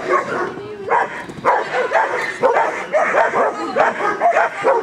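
A dog barking repeatedly, two or three barks a second.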